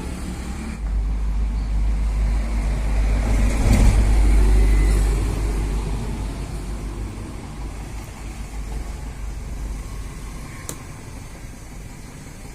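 Low engine rumble of a road vehicle going past, swelling to a peak about four seconds in and then fading away. A single sharp click comes near the end.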